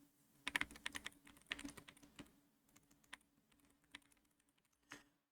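Soft, quiet keystrokes on a Hemu HM66 keyboard with Gateron Jade magnetic switches: two quick runs of typing in the first two seconds, then single taps about once a second. The switches are called extremely fast and silent.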